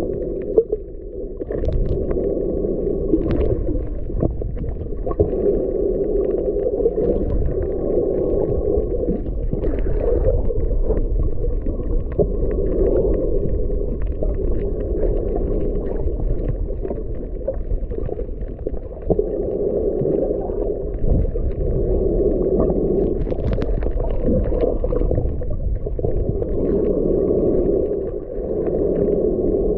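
Underwater water noise picked up by a submerged camera: a muffled, rumbling wash that swells and fades every few seconds, with scattered faint clicks.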